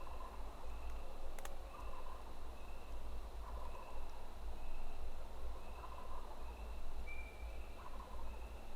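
Distant wild turkey gobbler gobbling from its roost, a gobble about every two seconds.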